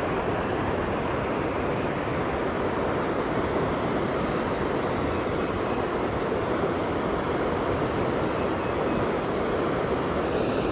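Steady rush of high, fast creek water pouring over and around a concrete low-water slab.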